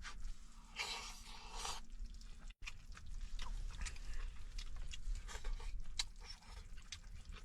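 Close-up chewing and crunching of food, with small clicks and scrapes. A short rustling hiss comes about a second in, over a steady low rumble.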